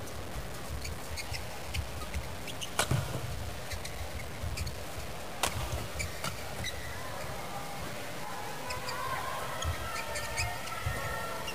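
Badminton rally on an indoor court: sharp smacks of rackets striking the shuttlecock, loudest about three and five and a half seconds in, then court shoes squeaking on the mat near the end, over a steady low arena background.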